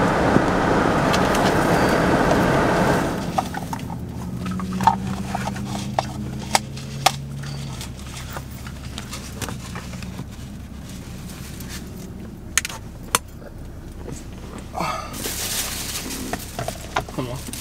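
Steady car cabin noise cuts off about three seconds in. Then come scattered clicks, car keys jangling and a plastic takeout bag rustling, with a rustling burst near the end.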